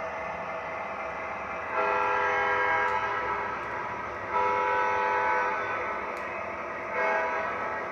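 Electronic diesel horn of an MTH ES44AC model locomotive's sound system sounding over a steady engine rumble: two long chord blasts, then a short one near the end.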